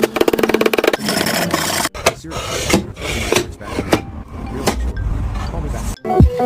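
Wood being worked with hand tools: a run of rubbing and rasping strokes, with abrupt changes in the sound about two and six seconds in.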